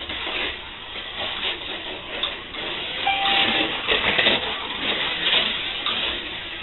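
Cheetah-chassis slot car running laps at 10 volts on a wooden routed track: electric motor whirring with the guide and pickup braids rattling along the slot, growing louder and fading again several times as the car passes and moves away.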